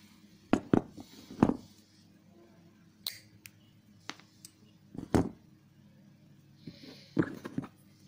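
Small metal clicks and taps of jewelry pliers working craft wire, in a few short clusters of sharp clicks about every second or two.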